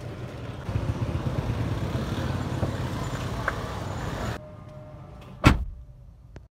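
For about four seconds there is low rumbling handling and movement noise. Then it goes quieter, and a Suzuki hatchback's door is shut with a single loud thump.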